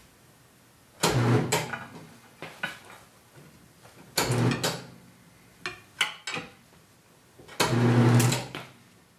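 Semi-automatic tire changer's turntable motor run in three short bursts of about a second each, humming as the stiff bead of a run-flat tire is forced over the rim with scraping rubber and metal. A few sharp clanks of the tire irons come between the second and third bursts.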